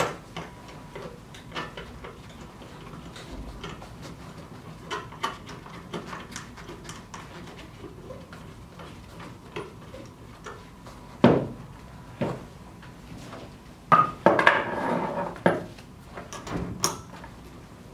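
Hand assembly of a hose inflation kit: metal fittings clicking and knocking as a twin-gauge regulator is fitted to an air cylinder on a wooden table. There is a sharp knock about two-thirds of the way through, and a longer burst of clattering and rustling shortly after as the coiled hose is handled.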